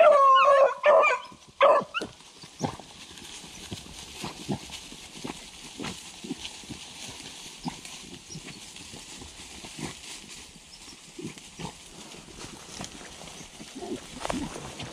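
A beagle gives a high, wavering cry for about two seconds, then scattered crunching and rustling in dry leaf litter.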